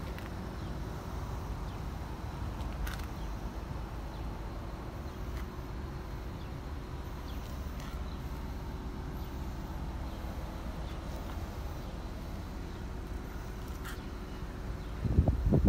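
Steady low outdoor rumble with a faint steady hum underneath. A burst of loud low thumps comes just before the end.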